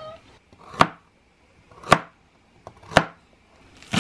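A cat's meow trails off right at the start. Then a kitchen knife chops green onions on a plastic cutting board: four sharp chops about a second apart.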